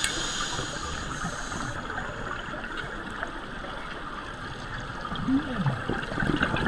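Water sloshing and gurgling, a steady noisy wash.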